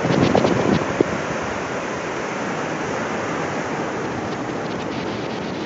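Sea surf breaking and washing over a rocky shore: a steady rushing, with wind buffeting the microphone in the first second and a short knock about a second in.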